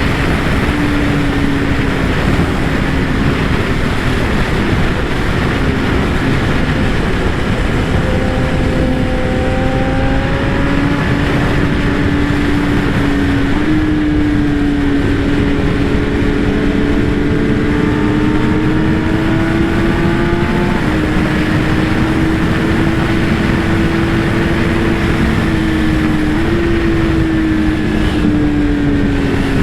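Kawasaki ZX-10R inline-four sport bike running at a steady road speed, its engine note drifting slowly and stepping up and down a few times, under heavy wind rush on the helmet or camera microphone.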